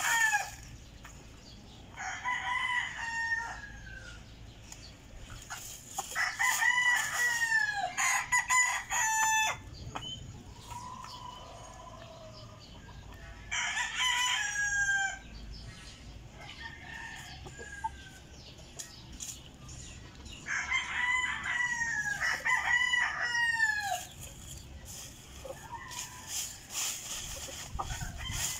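Roosters crowing again and again, each crow a second or two long and falling in pitch at the end, with two crows overlapping at one point.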